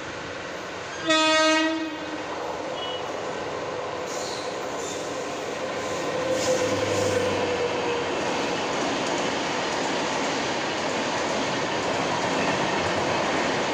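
Indian Railways WAP 7 electric locomotive sounding one short horn blast about a second in, then running past at speed with its train. The rush of wheels on rail grows louder as the locomotive goes by and the coaches follow.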